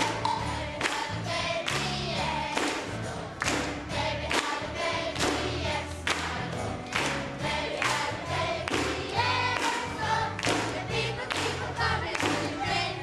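Upbeat choral Christmas song: a choir singing over a steady beat and bass line.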